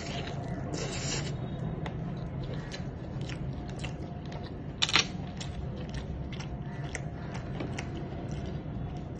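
Eating a roasted chicken drumstick: chewing and mouth noises with scattered wet clicks and smacks, and a louder snap about five seconds in.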